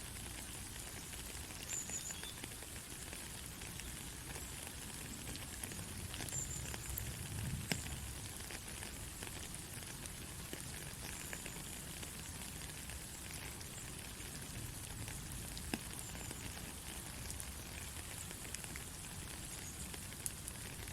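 Soft rain falling steadily: an even hiss of fine patter from many drops, with a few louder single drips standing out.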